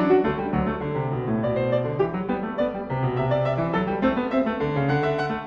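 Background piano music, a flowing run of sustained notes.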